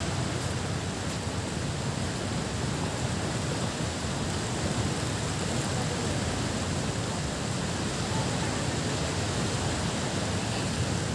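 Steady rushing noise of wind buffeting the phone's microphone, mixed with the wash of surf.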